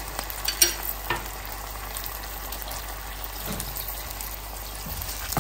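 Boneless chicken pieces sizzling steadily in a thin sauce in a nonstick frying pan. A few light clicks come between about half a second and a second in.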